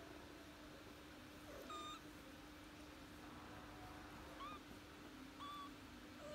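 19-day-old kittens mewing: three short, high, faint mews, the first about two seconds in and two more close together near the end.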